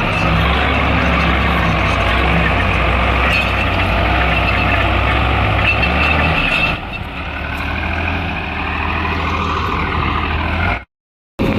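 JCB 3DX backhoe loader's diesel engine running steadily at working revs. The sound drops in level about seven seconds in, and cuts to silence for about half a second near the end.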